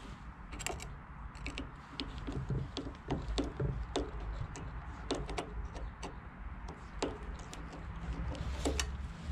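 Irregular light clicks, taps and knocks of hand tools and metal parts being handled during work on a small engine, over a low steady background rumble.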